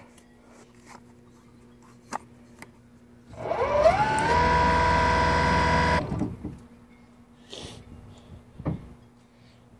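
Brushless DC electric boat motor and its reduction gearbox whining up in pitch as reverse power is applied, holding a steady whine for about two seconds, then cut off.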